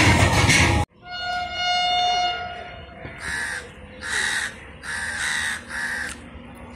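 A loud rushing noise cuts off abruptly just under a second in. Then an electric locomotive's horn sounds one long note that fades over about two seconds, followed by four short, harsh crow caws.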